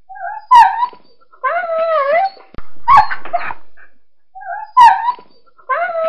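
A dog crying in pain: three short, sharp yelps, with two longer wavering whines between them, the second near the end.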